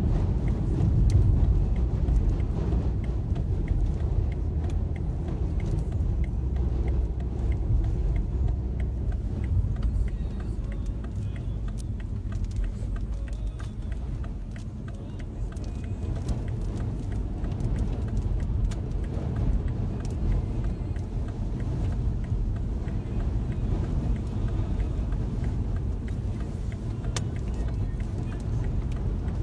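Car driving on a motorway, heard from inside the cabin: a steady low rumble of engine and road noise.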